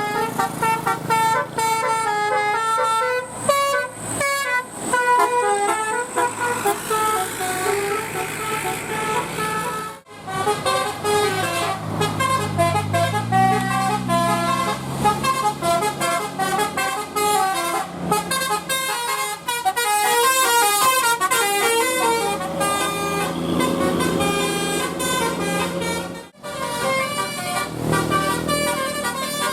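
Telolet multi-tone bus horns playing quick melodic tunes, one held note stepping to the next in several pitches at once. The tune breaks off twice, about ten seconds in and about twenty-six seconds in, and another horn tune starts.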